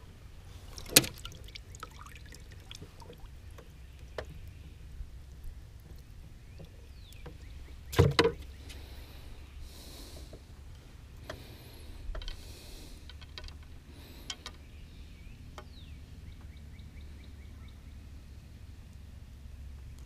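Handling noises of fishing tackle in an aluminium jon boat: a sharp knock about a second in and a louder knock about eight seconds in, with a few faint clicks between, over a low steady rumble.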